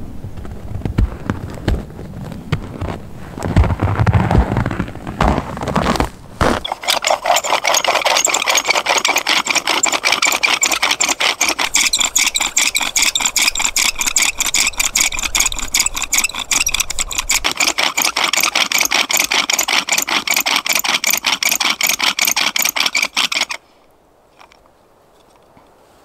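Low rumbling at first, then a rapid, even scraping that goes on for about seventeen seconds and cuts off suddenly near the end.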